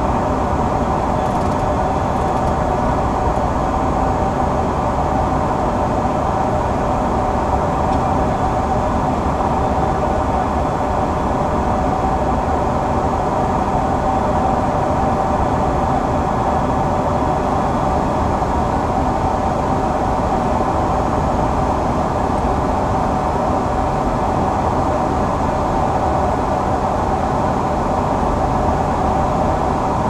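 Steady flight-deck noise inside an Embraer 175 in descent toward landing: an even rush of air with a constant hum running under it.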